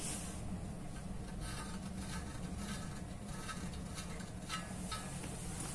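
Pencil scratching against steel as hole positions are traced through a steel angle bracket onto a hollow steel tube: faint short strokes, about one or two a second, over a steady low hum.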